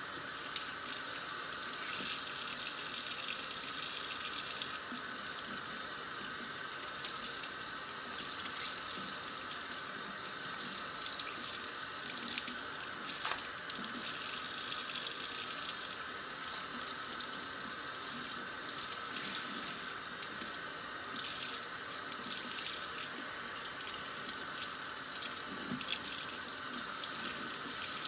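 Kitchen sink faucet running steadily, the stream splashing over a cloth and hands being washed under it; the splashing grows louder for a couple of seconds at a time as they move in and out of the flow.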